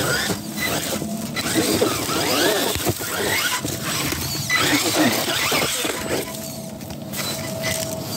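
RC rock bouncer's motor whining, its pitch sliding up and down over and over as the throttle is worked, with knocks and scrapes of the tyres and chassis on rock.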